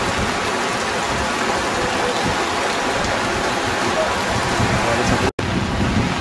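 Steady rushing noise of a fast-flowing floodwater torrent, which cuts out completely for a split second about five seconds in.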